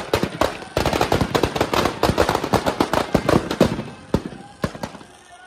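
Firecrackers packed inside a burning Ravan effigy going off: a few separate bangs, then a dense rapid string of cracks lasting about three seconds, thinning to scattered pops near the end.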